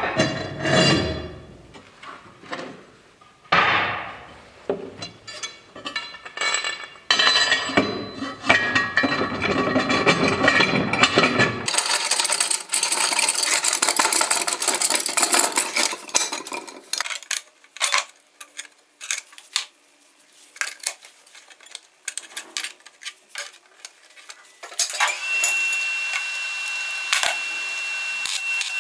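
Steel being worked by hand: a steel plate clamped in a bench vise is bent with a pipe lever, and a steel pipe is slid and levered inside a square steel tube, with repeated metal clinks, knocks and scraping. Near the end a steady hiss with a thin high tone sets in.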